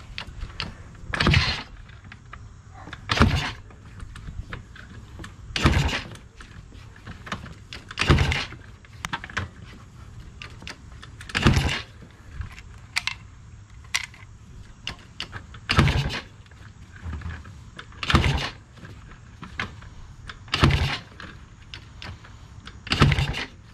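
Starter on a Polaris Sportsman 90's 90cc two-stroke engine cranking in short bursts of about half a second, nine times, each two to three seconds apart. The engine does not catch, even on starting fluid after the carburetor rebuild.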